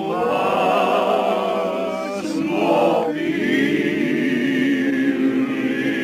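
A mixed group of men and women singing together in held, wavering notes, with acoustic guitar and mandolin accompaniment. About three seconds in the singing shifts to lower, steadier held notes.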